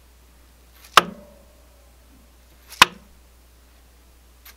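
Two sharp knocks about two seconds apart, one about a second in and one near three seconds: a dead blow hammer tapping a piston of a 2012 Cummins ISX diesel down into its new cylinder liner, a fraction of an inch per stroke.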